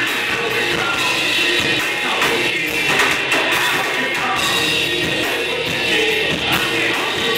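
Rock band playing live: electric guitar and drums, with a vocalist singing over them.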